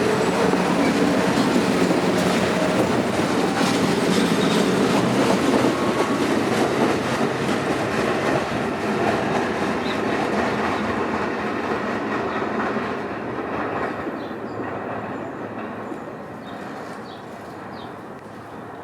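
Staten Island Railway R44 subway train running past, its wheels clacking over the rail joints, loud at first, then fading steadily as it moves away.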